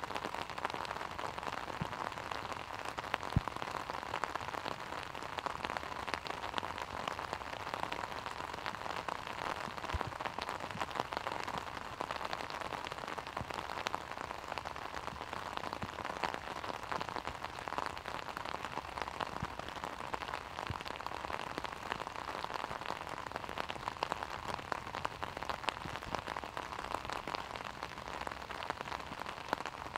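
Steady rain falling, with the sharp hits of many individual raindrops striking an umbrella held over the microphone.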